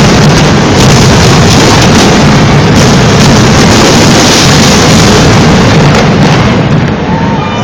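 Dense, continuous barrage of fireworks bursts, bangs running into one another at a level that overloads the recording. It eases near the end as crowd cheering and whistles begin.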